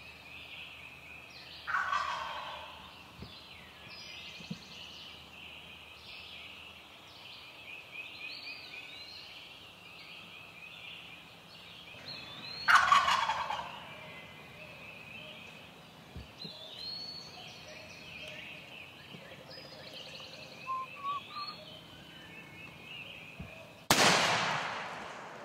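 Wild turkey gobbler gobbling twice, about eleven seconds apart, over a steady chorus of small songbirds, with a few short soft calls after. Near the end comes a sudden loud shot from a Knight TK 2000 muzzleloading shotgun, with a long echoing tail.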